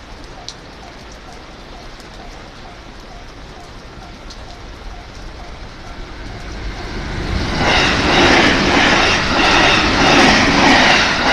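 Level crossing warning bell ringing in a steady repeating rhythm. About six seconds in, a JR West 281 series limited express train approaches and passes at speed: a rising rumble that becomes a loud rush of wheel and rail noise, mostly covering the bell.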